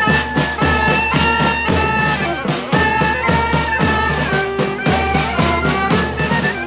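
Marching band playing: wind instruments carry a melody of held notes over a steady drum beat of about two strokes a second.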